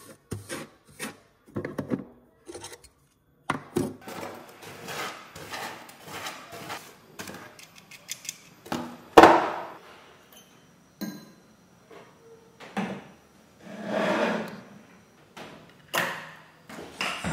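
Bristle brush sweeping metal filings across a metal bench plate in short strokes, then a small metal scoop being handled, with one loud knock about nine seconds in and a few lighter knocks and clicks after.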